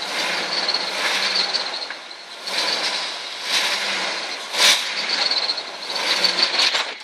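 Rock-crawler buggy's engine revving in repeated surges as it crawls down over boulders, with one sharp knock about two-thirds of the way through.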